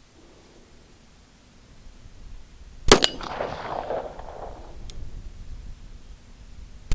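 Springfield Armory TRP 1911 pistol firing two handloaded .45 ACP rounds (Titegroup powder, 200-grain lead semi-wadcutter bullets), about four seconds apart. Each shot is sharp and followed by a ringing echo.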